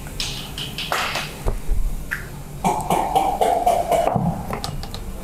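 Large plastic engine undershield being taken down and handled: irregular clicks and knocks of the panel and its fasteners, with a rough scraping rub of plastic lasting about a second and a half just before the middle.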